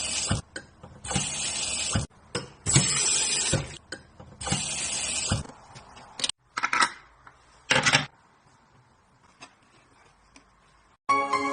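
Automatic cup rinser spraying its water jet up into a cup in hissing bursts of about a second, four times, then two shorter spurts, each triggered as a cup is pressed down onto the nozzle. Light clinks of the cup against the rinser come between the sprays.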